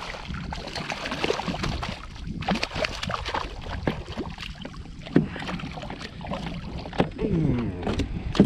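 Hooked speckled trout splashing and thrashing at the water's surface during the fight, in irregular bursts.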